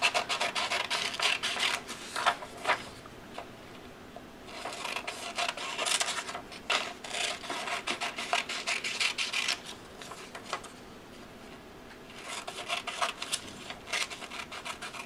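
Scissors cutting through a sheet of paper: three runs of quick snipping and crunching, with short pauses between them.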